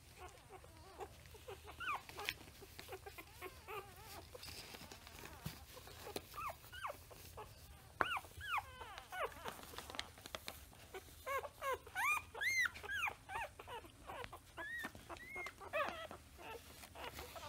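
A litter of newborn puppies whimpering and squeaking as they nurse, many short high cries overlapping, sparse at first and busiest in the second half.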